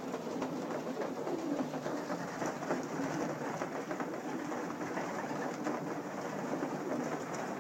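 A loft full of racing pigeons cooing, over a steady busy hubbub from the flock with scattered small clicks.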